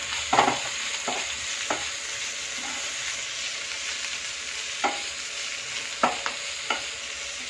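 Sliced vegetables sizzling as they stir-fry in a hot non-stick pan, with a steady hiss. A wooden spatula scrapes and knocks against the pan several times, a few near the start and a cluster towards the end.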